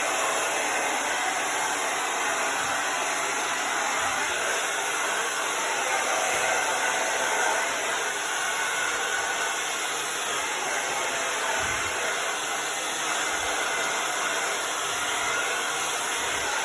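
Handheld hair dryer running steadily, a constant rush of blown air.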